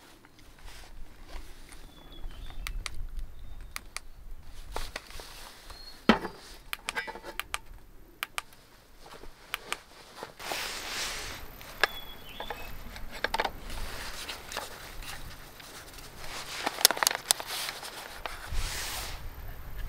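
Handling of a Klarus CL2 camp light: scattered plastic clicks and scrapes as it is switched and slid out into a lantern, with a sharp click about six seconds in and bursts of scraping later on.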